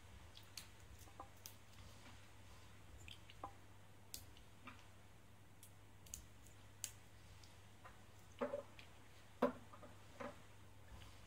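Small plastic robot parts being handled and fitted together by hand: sparse light clicks and taps, with a few louder knocks about eight and a half to ten seconds in.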